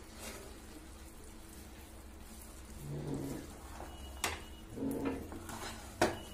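Wooden spatula gently stirring cooked sweet rice in a non-stick pan, soft scraping and rustling, with two sharp knocks of the spatula on the pan about four and six seconds in, over a steady low hum.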